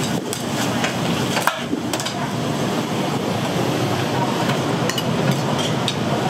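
Steady background din of a busy eatery, broken by a few sharp knocks and clicks.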